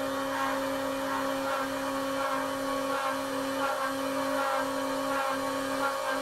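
Homemade desktop CNC router cutting into a fibreboard sheet: its small spindle motor whines steadily while the stepper motors drive the axes, their lower tone breaking off briefly about every three-quarters of a second between moves.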